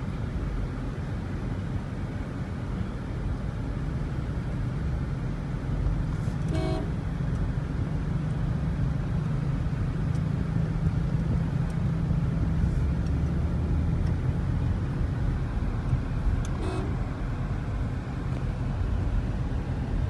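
Car engine and road noise heard from inside the cabin while driving, a steady low rumble. Two short vehicle horn toots sound, one about a third of the way in and another near the end.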